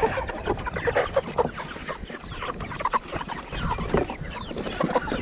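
A flock of Cornish Cross meat chickens clucking, many short calls overlapping without a break.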